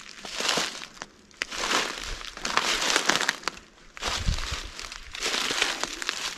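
Footsteps crunching through dry fallen leaves on a forest floor, several uneven steps about a second apart.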